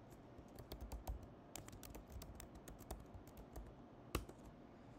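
Faint typing on a computer keyboard: a run of quick, uneven key clicks as a terminal command is typed, with one louder keystroke a little after four seconds in.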